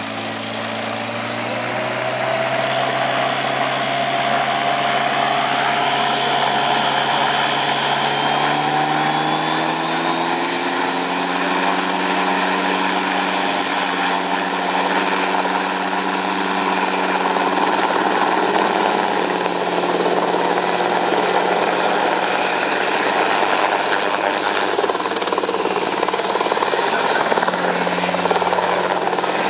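Helicopter engine and rotor running, rising in pitch and loudness over the first ten seconds or so, then holding a steady drone.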